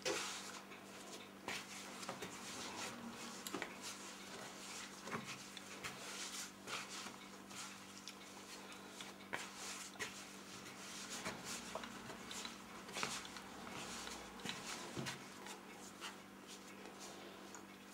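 Hands kneading soft yeast dough in a plastic bowl: faint, irregular squishes, pats and knocks against the bowl, over a low steady hum.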